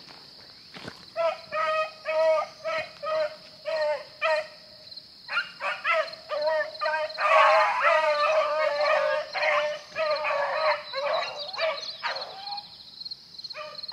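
Beagles baying on a rabbit's trail. One hound gives regular barks about twice a second, then more hounds join in for a denser chorus around the middle, which thins out near the end.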